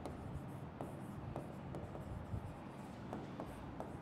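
A stylus writing on the screen of an interactive display: faint, irregular little taps and scratches as the strokes of a word are drawn.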